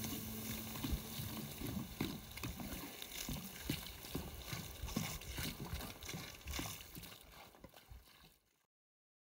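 Campfire being doused with water from a jug: water splashing onto the burning wood and coals with hissing and irregular crackling pops as the fire is put out. The sound dies away and cuts off suddenly near the end.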